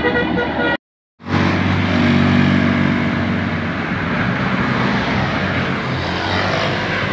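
A bus telolet multi-tone musical horn plays its last notes and cuts off suddenly under a second in. After a brief silence, a large bus's engine runs close by as a loud, steady low drone with road noise.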